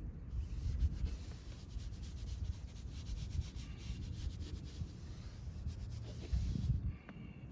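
Detailing brush scrubbing foamy cleaner into a textured plastic dashboard: a scratchy rubbing of many quick strokes that stops shortly before the end.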